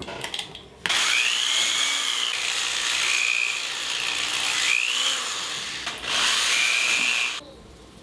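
Handheld rotary power tool whirring as it works the end of a leather belt strap, its whine sagging and recovering under load. It runs in two spells, starting about a second in, with a brief stop near the six-second mark and a cut-off shortly before the end.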